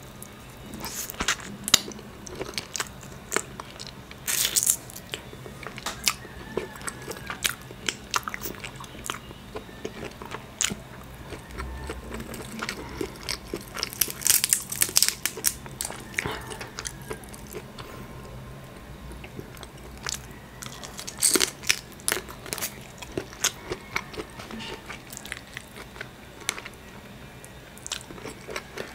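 Close-miked eating of a crab seafood boil: crab shell cracked and pulled apart by hand, with chewing. The sound is made of irregular sharp crunches and clicks that come in thicker clusters at a few points.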